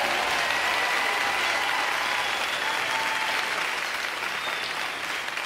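Audience applauding, a steady even clatter with a few faint high held tones (cheers or whistles) above it, slowly dying down near the end.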